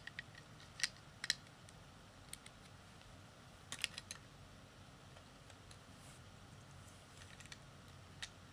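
Scattered small clicks of plastic Lego bricks being handled and pressed together, a few at a time with pauses between.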